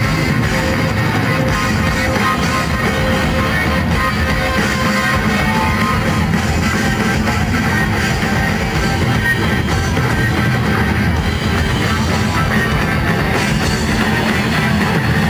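Live rock band playing loud, dense guitar-driven music with drums, heard from the audience.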